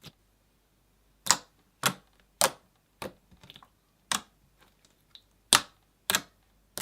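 Slime being pressed and poked, giving a string of sharp air-bubble pops, about eight of them roughly half a second apart.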